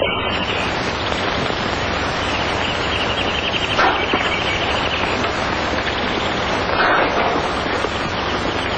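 Horses' hooves on dirt as riders pull up and the horses stand, under a steady crackling hiss from an old film soundtrack.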